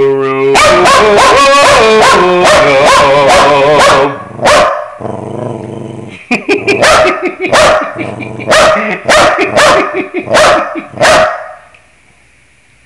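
A dog howling and yowling along to scales, in loud wavering pitched cries. A long unbroken run of cries lasts about four seconds, then a string of shorter howls follows, about one a second, stopping about a second before the end.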